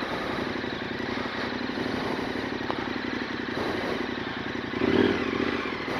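Adventure motorcycle's V-twin engine idling steadily, with a brief louder swell about five seconds in.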